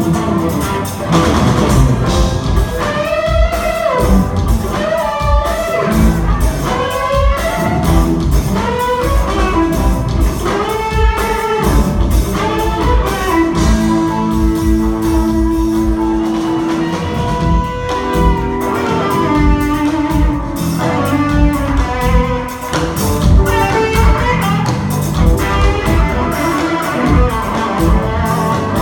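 Live instrumental rock-fusion band playing: a lead line of bending, sliding notes over drums and bass, with a few held chords about halfway through.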